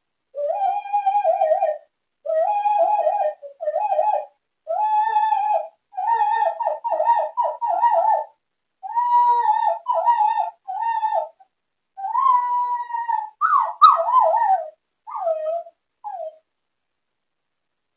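Miniature schnauzer howling in his sleep: a string of high, wavering howls, each a second or two long, ending in a few short falling yelps about 16 seconds in.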